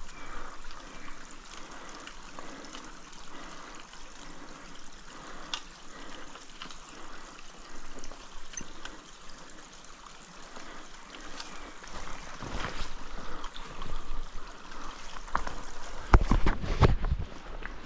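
A stream trickling, a steady hiss with small scattered clicks. From about twelve seconds in, low thumps and rustles grow louder and are loudest near the end.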